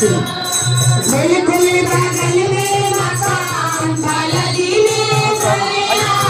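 Group singing a Hindu devotional song (bhajan), with a tambourine jingling and a steady low hum underneath.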